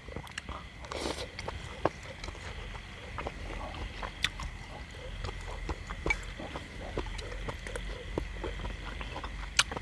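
A person chewing and eating close to the microphone: wet mouth smacks and irregular clicking, with a louder sharp click near the end. A faint steady high tone runs underneath.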